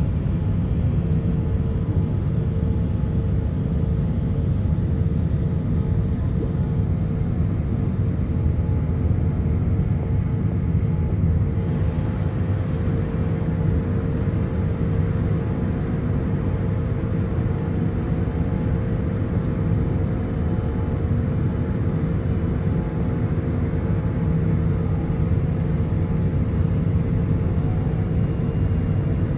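Steady drone of a Boeing 787 with its Rolls-Royce Trent 1000 engines running at idle after pushback, heard inside the cabin: a low rumble with a steady hum above it. The hiss shifts slightly about eleven seconds in.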